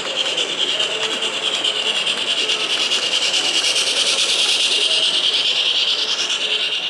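O-scale model steam locomotive and coaches running along the layout track: a steady whirring and rattling of the model's motor, gears and wheels on the rails, growing louder as the train passes close.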